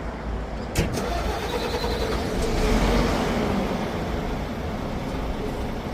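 Hyundai New Power Truck dump truck's diesel engine being started by a smartphone remote starter after its 10-second preheat: a sharp click about a second in, then the engine picks up, swells and settles into steady running.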